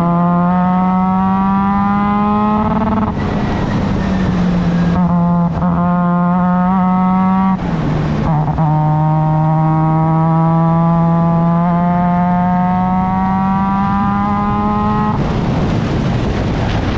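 Formula Mazda race car's rotary engine under hard acceleration, its pitch climbing slowly and steadily. Three times, about three seconds in, near the middle and near the end, the clean tone breaks into a second or two of rough, noisy rasp as the throttle comes off.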